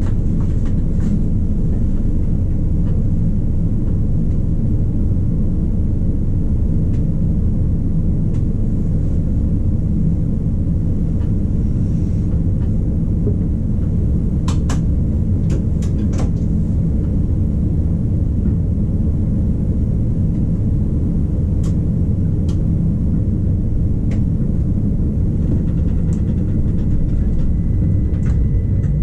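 Rhaetian Railway ABe 8/12 electric railcar rolling slowly, a steady low rumble, with a few sharp clicks about halfway through.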